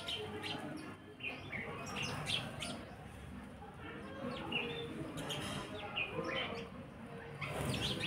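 A flock of house sparrows chirping, many short high chirps overlapping. Near the end comes a louder, brief burst of noise.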